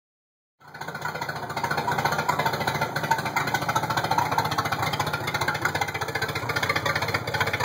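Mariah boat's 4.3-litre V6 engine idling steadily, running with its air breather off.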